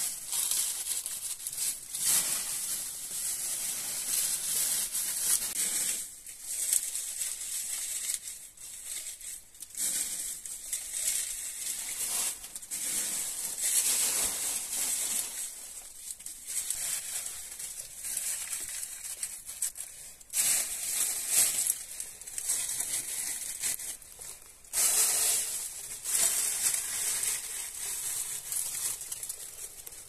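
Dry fallen leaves rustling and crunching as they are handled and moved about, coming and going unevenly, with louder spells about two-thirds through and near the end.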